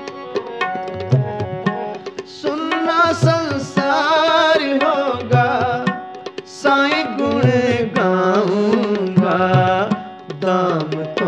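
Gurbani kirtan: tabla playing a steady rhythm under a harmonium, while a male voice sings a long melodic line, bending and gliding in pitch, without clear words.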